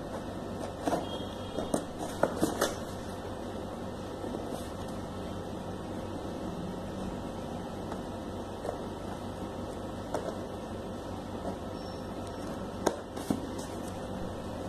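Small serrated knife scraping and cutting at packing tape on a cardboard box, with the box being handled and a few sharp clicks and taps, several in the first few seconds and two more near the end, over steady background noise.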